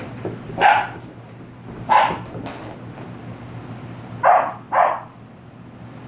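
An 18-week-old German Shepherd–Husky mix puppy barking in a tantrum after its bath: four sharp barks, spaced out, the last two in quick succession about four seconds in.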